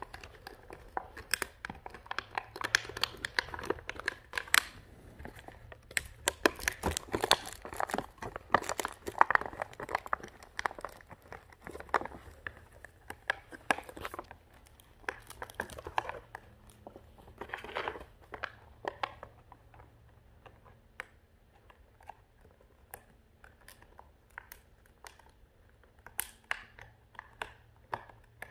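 Clear plastic packaging crinkling and crackling as a French bulldog puppy noses into it and pushes it about with its head. The crackling is dense at first and thins to scattered crackles after about fifteen seconds.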